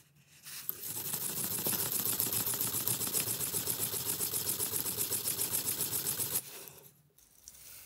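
Watch case back, clamped in a metal movement holder, scrubbed by hand back and forth on a Scotch-Brite abrasive pad over a flat steel plate: a rhythmic scraping at about four strokes a second, refinishing the case back's grained finish. It starts about half a second in and stops about a second before the end.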